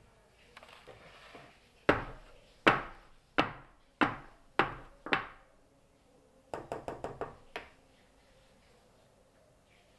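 A batter-filled metal springform cake pan rapped down hard on the countertop six times, about once every two-thirds of a second, then a quick run of lighter taps. This is the usual way to knock air bubbles out of cake batter before baking.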